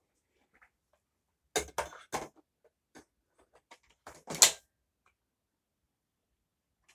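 A run of sharp clicks and knocks from hard objects being handled: a cluster about a second and a half in, then another just after four seconds with the loudest knock. No motor is running.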